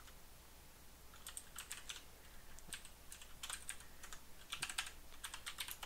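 Faint computer keyboard typing: after a pause of about a second, several short runs of quick key clicks with gaps between them.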